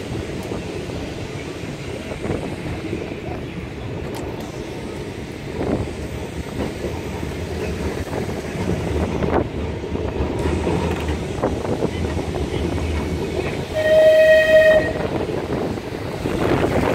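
Open-top boat tram running along street track, with a steady rumble of wheels and motors. Near the end a horn sounds once for about a second.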